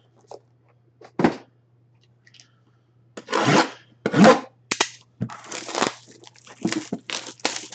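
Packaging being torn open and handled as a memorabilia box is unboxed: a series of short crackly tearing and crinkling bursts, thickest in the second half.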